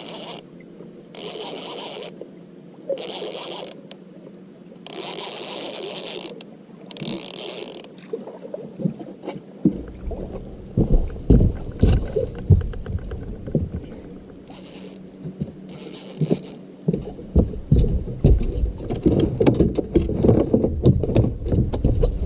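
Knocks, scrapes and rumbling on a small fishing boat, starting with hissing noise that comes and goes and turning into a dense run of thuds and knocks about ten seconds in.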